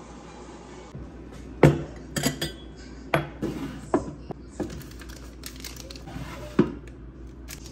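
Glass teapot and glass teaware handled on a wooden counter: a series of clinks and knocks, the loudest about a second and a half in and another near the end.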